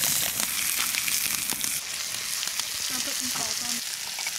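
Rainbow trout fillets frying in garlic butter in a cast-iron pan, a steady hot sizzle with fine crackling and spitting.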